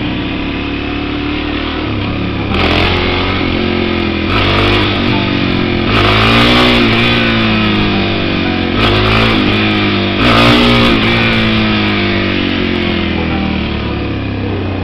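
Suzuki DR-Z400E's single-cylinder four-stroke engine, ridden and revved hard about five times, the pitch climbing and falling back each time as the throttle is snapped open to lift the front wheel.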